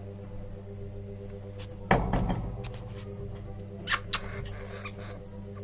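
Pet hamster making short, sharp squeaks and clicks, several near the middle, over a steady low hum, with one loud knock about two seconds in.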